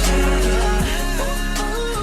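Background pop music with a steady beat and a sung melody, beginning to fade out.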